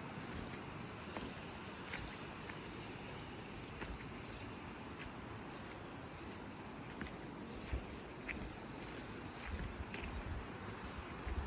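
Insects chirring in a steady high-pitched drone, with a few faint ticks and some soft low thumps near the end.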